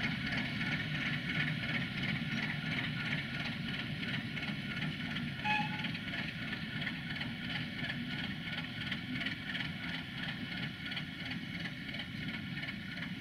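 Straight-six diesel engine of a ČKD ChME3 shunting locomotive running steadily as the locomotive moves slowly away, growing a little fainter toward the end. A brief high note sounds about five and a half seconds in.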